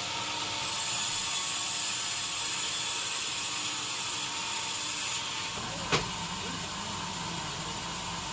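Sawmill machinery running with a steady high hiss that cuts off a little past five seconds in, leaving a lower machine hum, with a single sharp knock about a second later.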